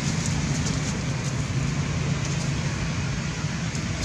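Steady low rumble with a hum in it, holding level throughout, with a few faint ticks over it.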